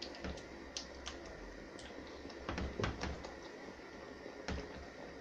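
Spatula stirring a wide pan of tomato sauce, with light scrapes and scattered soft clicks against the pan and a few louder knocks about halfway through.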